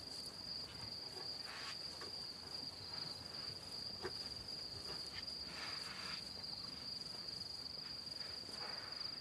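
Night insects trilling, a steady high-pitched drone, with a few faint soft scuffs over it.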